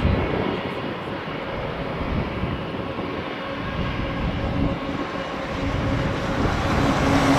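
Boeing 737-800's CFM56-7B turbofan engines on landing approach: a steady jet roar that grows louder near the end, with a low humming tone coming through.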